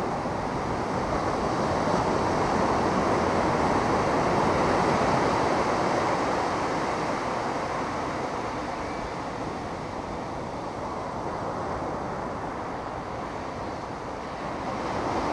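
Ocean surf washing onto the beach, a steady rush with wind on the microphone. It swells in the first few seconds, eases off in the second half and rises again near the end.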